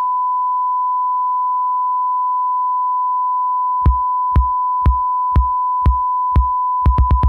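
A steady 1 kHz test tone, the reference tone a hi-fi test record plays to check signal level. About four seconds in, low kick-drum thumps start over it, twice a second, and speed up into a quick roll near the end.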